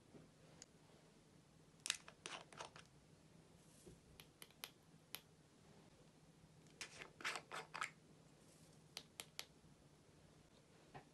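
Small plastic containers clicking and rattling as glitter and crumbled eyeshadow are shaken and tapped out onto clear slime. The sound comes in four short bursts of clicks, the two loudest about two seconds in and about seven seconds in.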